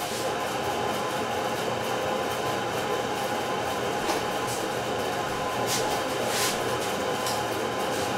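Motor-driven rotating cylinder of a kinetic stroboscopic light sculpture, running with a steady mechanical drone and a fixed hum. A few brief faint hisses come between about four and six and a half seconds in.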